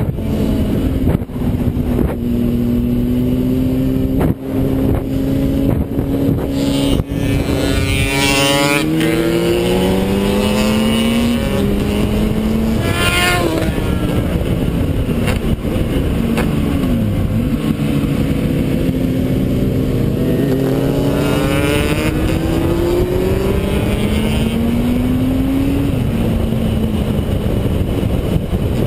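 Yamaha DT 200R's single-cylinder two-stroke engine running at speed on a track, climbing in pitch through the revs and dropping sharply at each gear change or roll-off, several times over.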